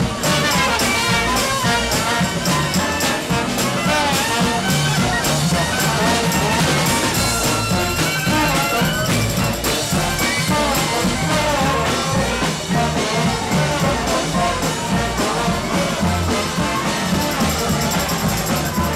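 Live New Orleans second-line brass band music: trumpet and other horns playing over a drum kit with a steady, driving beat.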